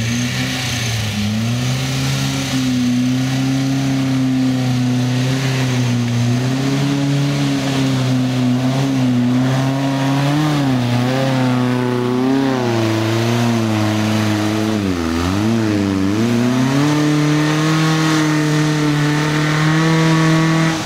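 Volkswagen Beetle's air-cooled flat-four engine working hard under load as the car climbs a muddy trials section, the rear wheels throwing up earth. The revs waver up and down, drop sharply about fifteen seconds in, then climb and hold high near the end.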